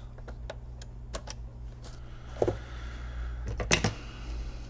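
Light plastic clicks and taps of hands unplugging cable connectors and handling a laptop's plastic case, with a few louder knocks about two and a half and three and a half seconds in.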